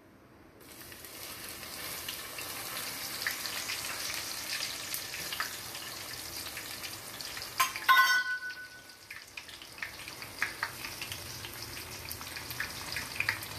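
Peeled garlic dropped into hot oil, sizzling and crackling as it deep-fries in a wire sieve; the sizzle starts suddenly about half a second in. About eight seconds in there is one loud, ringing metal clank.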